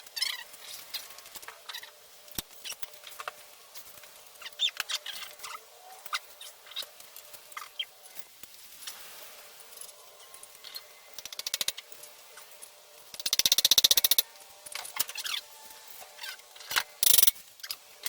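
Irregular sharp clicks and clinks, with a fast rattling run lasting about a second roughly two-thirds of the way through.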